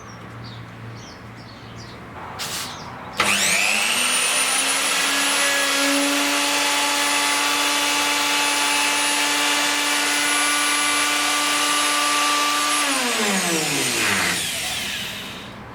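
Parkside wood router switched on, its motor spinning up to a steady high whine, running for about ten seconds, then switched off and winding down with a falling pitch near the end.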